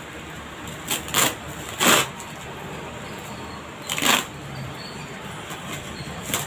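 Plastic parcel mailer crinkling as it is cut open with scissors, in a handful of short bursts.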